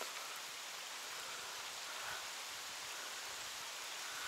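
Steady rain falling, a soft, even hiss with no other distinct sound.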